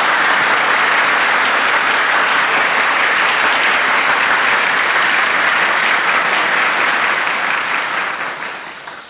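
Steady crowd applause that fades out near the end.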